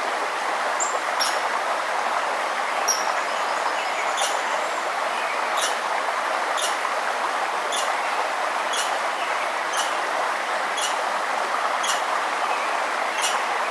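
Forest stream rushing steadily, with a sharp, high chip call repeated about once a second and a few brief bird notes early on.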